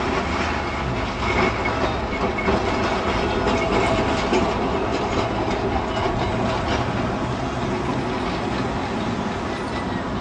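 Vintage Blackpool electric tram running on its track, wheels clicking over the rail joints, louder and busier in the first half and steadier later on.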